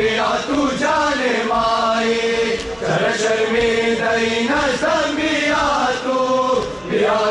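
A noha, a Shia mourning lament, chanted in long held melodic phrases with slow bends in pitch.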